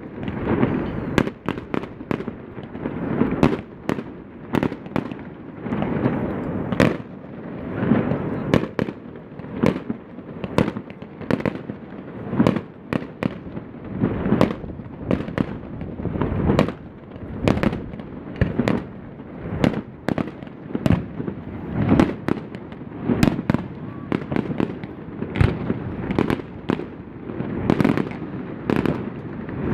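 Fireworks display: aerial shells bursting in a continuous series of sharp bangs, about one or two a second, with crackling and rumbling between them and voices of onlookers underneath.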